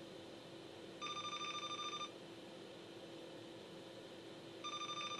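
Bench multimeter's continuity beeper sounding twice, a fluttering electronic beep of about a second and then a shorter one near the end, as the probe touches the capacitor line on the iPhone 12 logic board. Only brief beeps rather than a steady tone: the line is no longer in short circuit.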